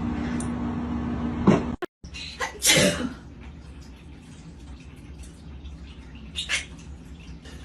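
A steady low hum that stops at a cut, then a pet's single loud sneeze about a second later.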